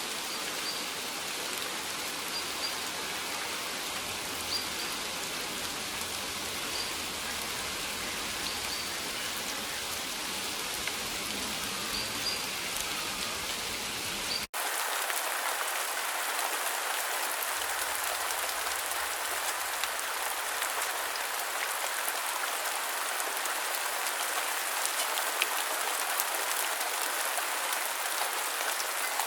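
Steady rain falling. About halfway through it breaks off for an instant and comes back as a louder, brighter hiss.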